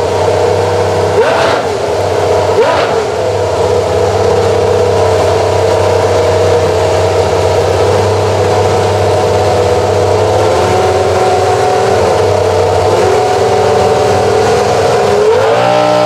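Minardi PS05 Formula 1 car's Cosworth V10 running during a warm-up. It gives two short throttle blips early on, then holds a steady high idle that settles a little lower about ten seconds in and rises again just before the end.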